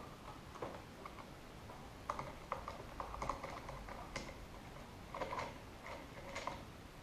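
Faint, irregular small clicks and scrapes of a screwdriver turning out the single stock screw of a Marlin 1894 lever-action rifle, coming in short clusters.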